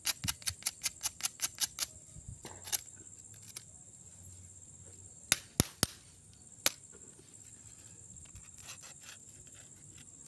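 A quick, even run of about ten sharp clicks in the first two seconds, then a few scattered single clicks, over a faint steady high-pitched insect drone.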